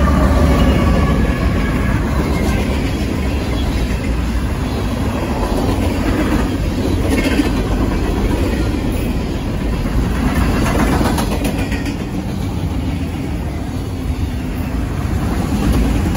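Diesel-hauled freight train passing close by. The lead locomotives go by at the start, then a loud, steady rolling noise of steel wheels on the rails as the freight cars pass, with brief higher-pitched clatter now and then.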